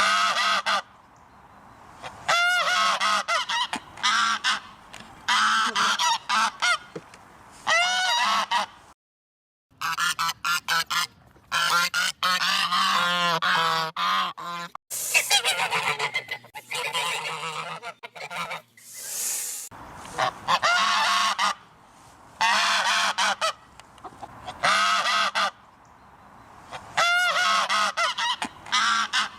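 Geese honking loudly over and over, in bouts of calls separated by short pauses. The sound cuts out completely for about a second a third of the way in.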